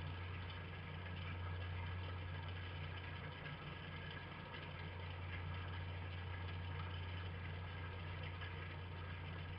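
A steady low hum with an even hiss over it, unchanging throughout; nothing from the fox stands out above it.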